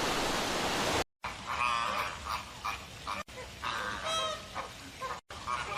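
Flamingos honking: a flock's short, goose-like calls in several abruptly cut clips, after about a second of loud rushing noise.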